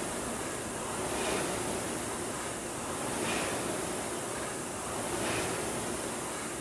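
Concept2 indoor rowing machine's air-resistance flywheel fan whooshing, surging with each drive stroke at about one stroke every two seconds and easing on the recovery.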